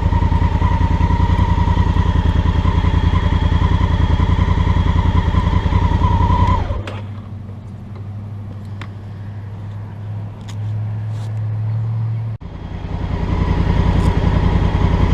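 Honda Africa Twin Adventure Sports' parallel-twin engine and exhaust running with a steady pulsing beat at slow riding speed. About halfway through, the sound drops to a much quieter low hum for around five seconds, then the engine sound comes back in abruptly.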